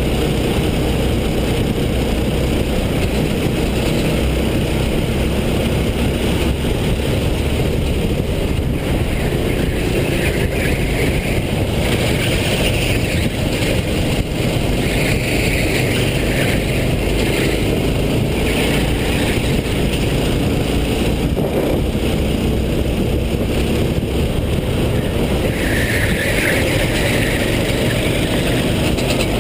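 Kart engines running hard during a race, the onboard kart's own engine mixed with those of karts close ahead, with a steady rush of wind and tyre noise.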